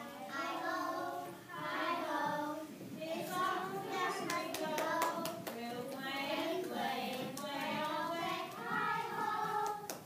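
A group of children singing together in sung phrases, with scattered hand claps joining in from about three seconds in.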